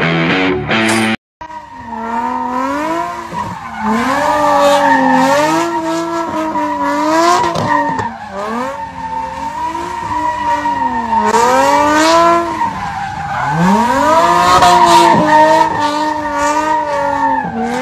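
A car drifting in circles: tyres squealing with a steady high tone while the engine revs up and falls back again and again, every couple of seconds. Before that comes a brief stretch of rock guitar music that cuts off about a second in.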